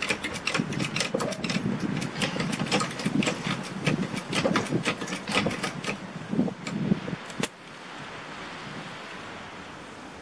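Rapid clicking and crinkling of a plastic tarp and a trolley jack being handled and set in place on the ground, with dull knocks. It stops sharply about seven and a half seconds in, leaving a steady hiss.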